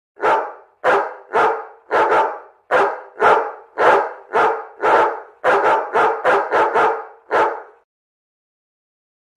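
A dog barking about fifteen times in quick, slightly uneven succession, roughly two barks a second, stopping shortly before the end.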